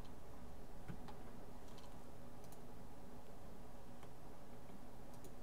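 A few faint computer mouse clicks, about one, two and two and a half seconds in, over a steady low hum.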